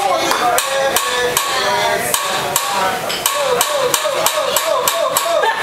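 Rapid, steady metal clacking, about four strikes a second: a hibachi chef's spatula beaten against the steel griddle, with voices over it.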